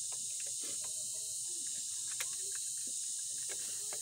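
Scattered light clicks and clinks of hand tools on a motor scooter's front fork and handlebar area, over a steady high-pitched insect drone.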